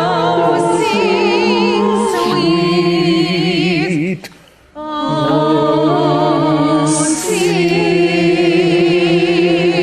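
Several voices singing long held notes together in harmony with a strong vibrato. They break off briefly about four seconds in, then take up the next held chord.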